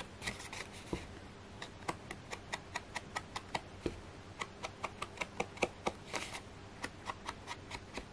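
Quick light taps, irregular and up to about four a second, with two short brushing rubs, one near the start and one about six seconds in.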